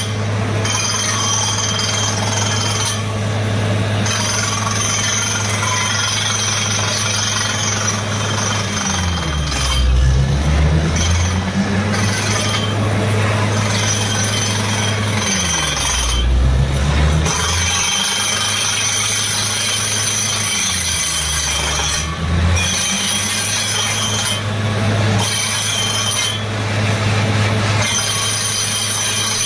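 Truck-mounted down-the-hole water well drilling rig running loud and continuous with its engine and air compressor, a steady hiss over a steady engine drone. Three times the engine speed sags and recovers, as it does when the rig comes under load.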